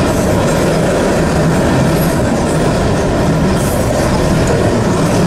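Norfolk Southern mixed freight train of boxcars, tank cars and covered hoppers rolling past close by: a loud, steady rumble of steel wheels on rail.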